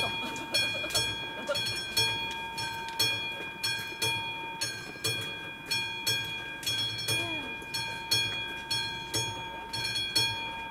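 Classic mechanical level-crossing bell on AŽD 71 warning signals ringing steadily at about two strikes a second, each strike ringing on and fading: the crossing's warning that a train is approaching.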